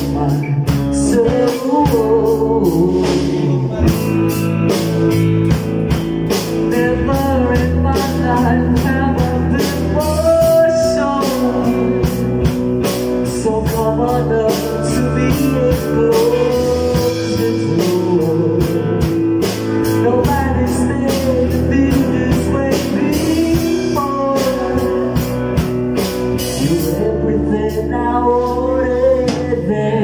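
Live rock band: a male vocalist sings into a handheld microphone over a drum kit, electric bass guitar and guitar.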